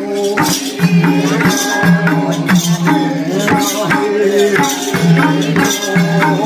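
Bhailo festival song: voices singing over a hand drum keeping a steady beat, with jingling, shaker-like percussion.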